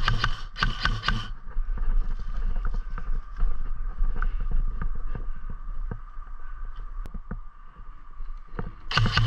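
Airsoft electric gun firing short full-auto bursts: two bursts in the first second and another starting near the end, each a rapid, even rattle of shots over the motor's hum. In between, quieter rustling and scattered clicks of movement through dry brush.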